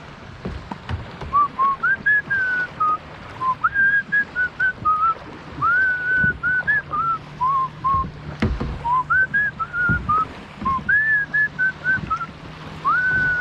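A person whistling a tune in short melodic phrases of clear notes, over wind and water noise, with a single knock about eight and a half seconds in.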